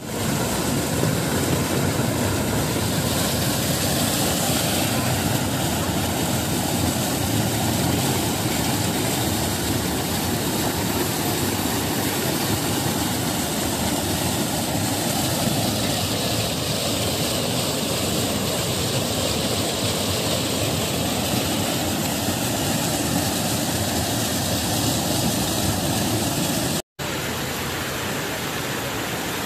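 Floodwater gushing up out of a street manhole, a loud, steady rush of water. About 27 s in it breaks off, and a somewhat quieter rush of fast-flowing floodwater follows.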